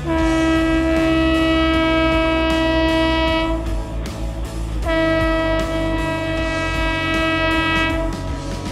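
WAP-5 electric locomotive's horn sounding two long steady blasts of about three seconds each, the second starting about five seconds in, over a low rumble from the approaching train.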